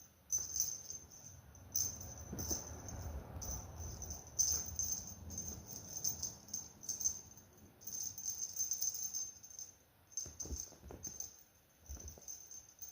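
A rattling cat toy jingling in short, irregular bursts as cats bat it around, with a few soft thumps near the end.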